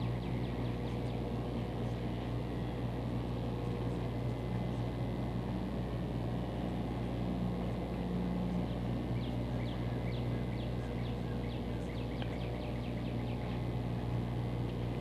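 Steady low hum with birds chirping over it: many short, high chirps in flurries, busiest in the second half.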